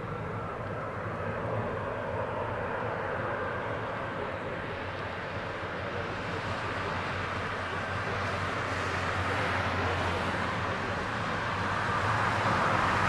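Jet2 Boeing 757-200 on final approach with its gear down, its twin jet engines running as a steady low rumble and hiss that grow louder and brighter as it comes closer.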